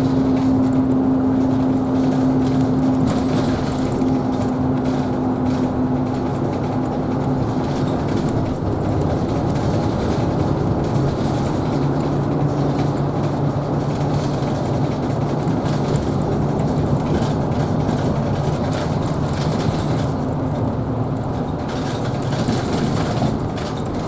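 Isuzu Erga Hybrid city bus running along the road, heard from inside: steady drivetrain hum and road rumble, the hum shifting lower in pitch partway through.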